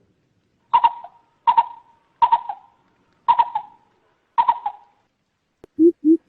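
Greater coucal calls from a lure recording: five short, sharp clicking calls about a second apart. Near the end a quick run of deep hoots begins, rising slightly in pitch.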